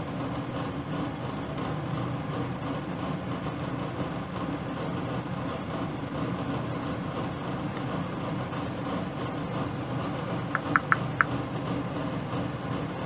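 A steady machine hum throughout, with three short high beeps in quick succession about eleven seconds in.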